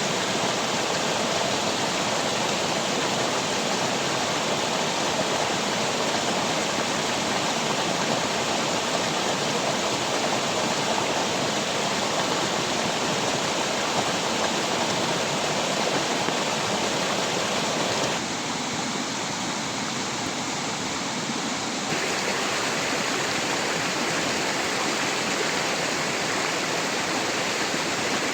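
Steady rushing water noise. It dips a little and changes in tone for a few seconds about two-thirds of the way through, then returns.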